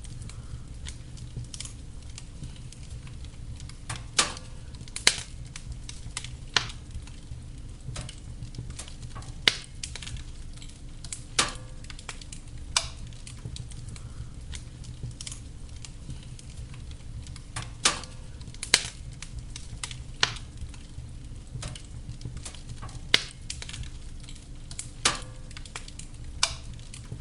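Wood fire burning in a fireplace: a steady low rumble of the flames with irregular sharp pops and crackles from the burning logs, about a dozen loud ones spaced a second or several apart.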